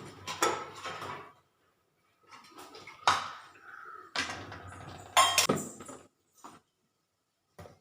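Kitchen dishes and utensils being handled: a string of separate clinks and knocks as things are picked up and set down, with short quiet gaps between them.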